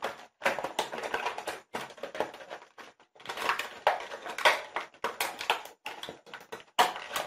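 Plastic bag crinkling and rustling in irregular bursts as a power adapter and its cord are pulled out of it.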